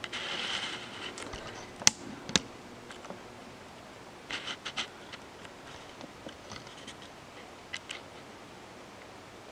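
Steel toolmaker's vise slid on a stone surface plate under a dial test indicator: a faint scrape at the start, then two sharp clicks, a few light taps a little later and scattered faint ticks.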